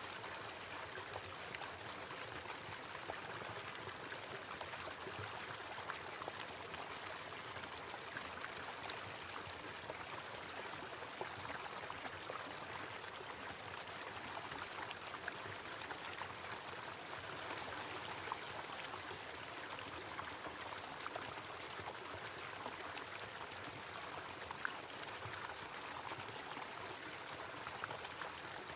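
Small waterfall running steadily: water pouring and splashing into a stream, with scattered small splashes.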